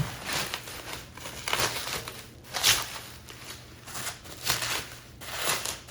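Packaging wrap crinkling and rustling as it is pulled open by hand, in a run of about five short irregular swishes.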